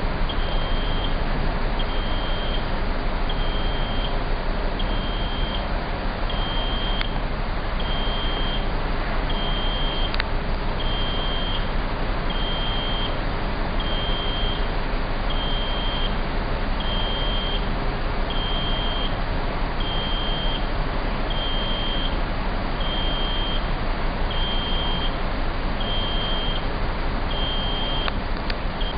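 Crane warning beeper sounding evenly, one high beep about every second and a half, over a steady hum of machinery and wind.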